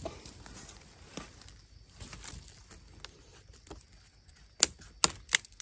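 Faint rustling and crackling of dry bamboo leaf litter and twigs, then three sharp cracks close together near the end as dry bamboo at the base of a clump is worked by hand.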